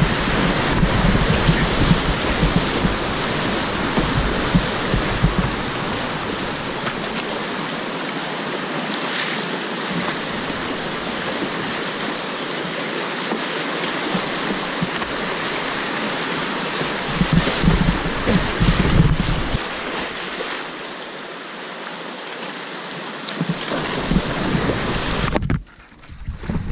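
Whitewater rapids rushing loudly around a kayak, a steady river noise with low buffeting on the camera microphone at times. Near the end the sound cuts out sharply for about a second, then comes back.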